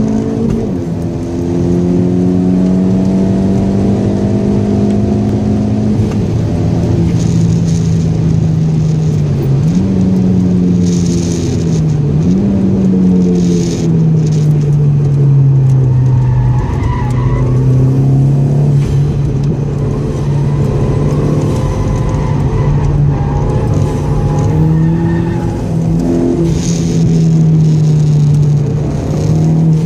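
Seat Ibiza FR 20VT's turbocharged 20-valve four-cylinder engine, fitted with a K04-001 hybrid turbo, running hard at high revs from inside the cabin. There are brief dips and rises in pitch at gear changes and lifts, and tyres squeal at times through the corners.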